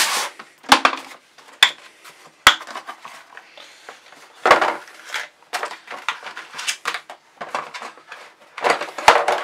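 Hard black plastic torque-wrench case being handled and opened on a tile floor: clattering, knocks and several sharp clicks, with rustling of its cardboard box and paper manual.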